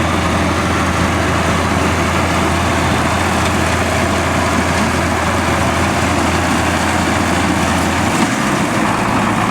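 Farm tractor engine running steadily and loud close to the microphone, a dense low drone that shifts slightly in pitch about eight seconds in.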